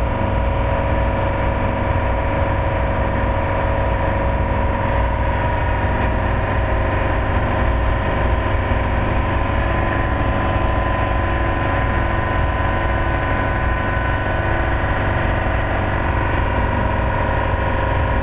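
A machine running steadily, a constant low hum with a higher whine held on one pitch and no change in speed.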